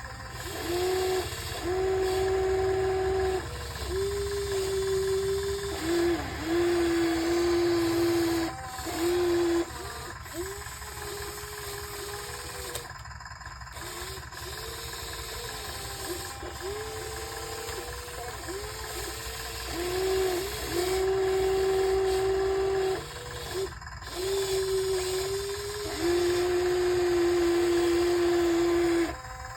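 Motors of a radio-controlled excavator whining in repeated runs of one to three seconds as it is worked digging sand. Each run is a steady hum that bends in pitch as it starts and stops, with short pauses between.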